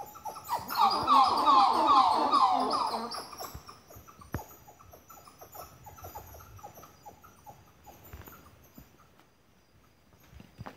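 A tiny unseen animal in the forest canopy calling loudly: a dense rush of rapid, downward-sliding notes for about three seconds, then fainter scattered calls.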